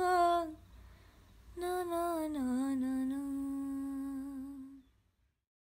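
A woman humming a slow melody as a soundtrack song: one phrase ends just after the start, and a second begins about a second and a half in, steps down in pitch and is held before fading out near the end.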